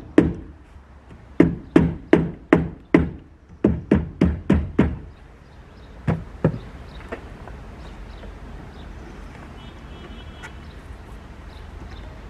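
Hammering: two quick runs of about five blows each at roughly three a second, then two single knocks, after which only a steady low background noise with faint ticks remains.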